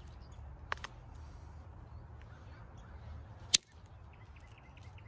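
Flintknapping strikes on a piece of creek flint being thinned into a knife blade: two light sharp clicks about a second in, then one much louder sharp crack about three and a half seconds in.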